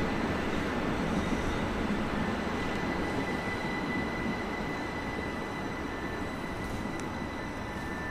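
Red narrow-gauge electric trains of the Rhaetian Railway rolling slowly, with a steady rumble of wheels on rail. Over it runs a thin, steady high whine that fades out past the middle.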